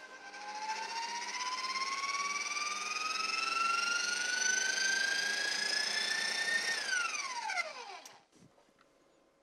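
Electric stand mixer motor running a flat beater through cake batter. Its whine climbs steadily in pitch as the mixer speeds up, then falls away quickly about seven seconds in as it is switched off and winds down to a stop.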